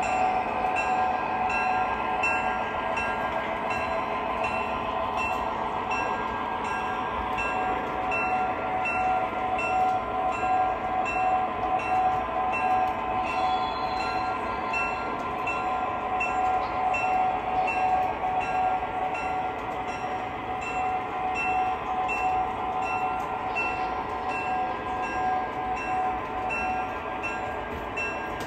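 O scale model diesel locomotives running on the layout, their onboard sound systems playing a steady diesel engine drone with a bell ringing in an even repeating beat, over the rolling of wheels on three-rail track. It eases off slightly near the end.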